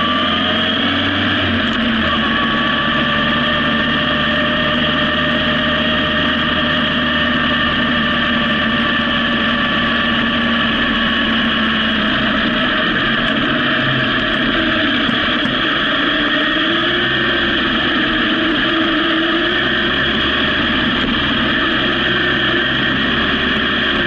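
Honda CB750 four-cylinder motorcycle engine running at low road speed, heard from the bike itself over a steady rushing noise. Its pitch dips about halfway through and climbs again a few seconds later as the throttle changes.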